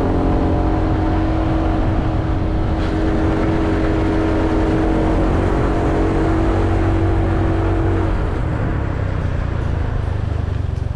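Motorcycle engine running steadily while riding, its note held even and then dropping away about eight seconds in as the bike eases off.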